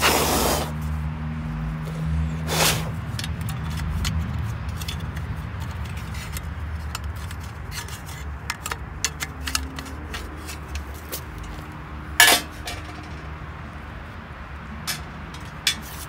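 Lawn tractor air cleaner parts being handled: light clicks and taps of a metal air cleaner cover against a plastic filter frame, with three short rushing noises, the loudest about twelve seconds in.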